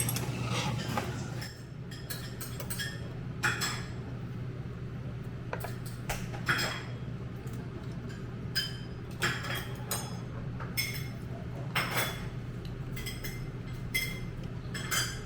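Cutlery clinking irregularly against dishes and bowls during a meal, over a steady low hum.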